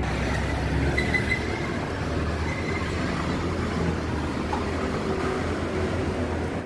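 City street background noise: a steady low traffic rumble with general hubbub, and a brief high-pitched squeal about a second in.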